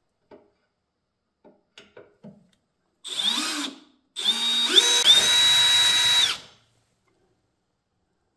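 Milwaukee Fuel cordless drill boring the first hole into an aluminium chassis panel: a short spin-up about three seconds in, then a longer two-second run whose whine steps up in pitch before it stops. A few light clicks of handling come before it.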